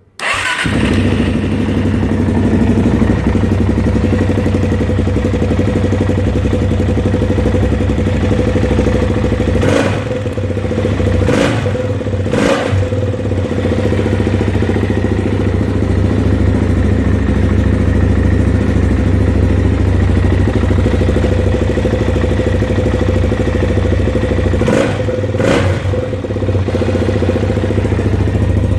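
Suzuki LTZ 400 quad's single-cylinder four-stroke engine starting up and running steadily, with a few brief throttle blips about ten to thirteen seconds in and again near twenty-five seconds.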